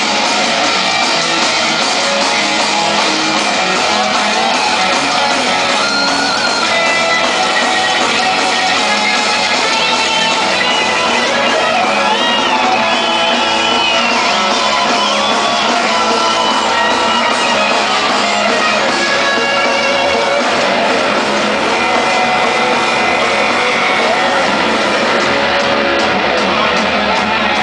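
A live punk rock band playing loud: electric guitars with shouted singing, at an even, dense level throughout.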